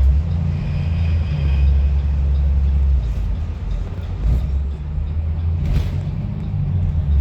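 Low steady rumble of a school bus under way, heard from inside the cabin, with one brief knock about six seconds in.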